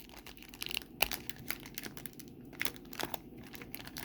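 Plastic wrapper of a baseball card pack crinkling and tearing as it is worked open by hand, in a run of irregular small crackles.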